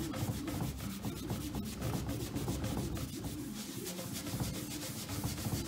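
Paper kitchen towel scrubbed back and forth over a paste of baking soda and oil on a cabinet top, quick repeated rubbing strokes working off built-up kitchen grease.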